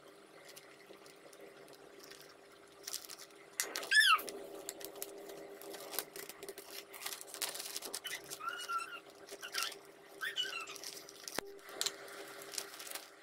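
Plastic ziplock bags crinkling and rustling as they are handled, with a child's high squeals three times, the loudest about four seconds in, over a steady low hum.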